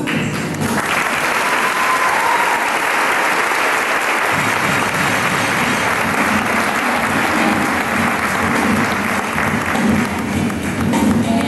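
Audience applauding, starting about a second in, over the show's background music.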